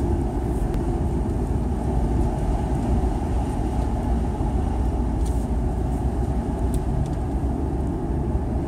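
Steady road noise of a moving car heard from inside the cabin: tyres and engine making an even low rumble.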